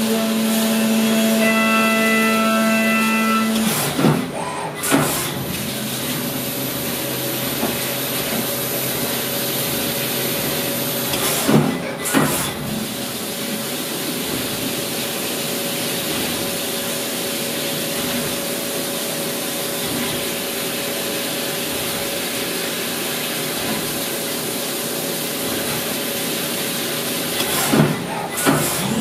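Brother S700X1 CNC vertical machining center milling under a coolant spray: a steady spindle whine over an even hiss. About four seconds in the whine drops away and a different steady tone takes over, with pairs of short sharp clicks there, around twelve seconds and again near the end.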